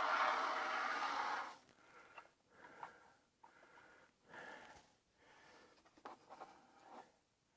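Can of Great Stuff expanding spray foam hissing as foam is dispensed: a steady hiss for about the first second and a half, then short, quieter sputters.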